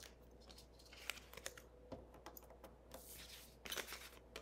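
Faint clicks, taps and paper rustling as cardstock pieces are handled for layering, with a longer scraping rustle about three seconds in.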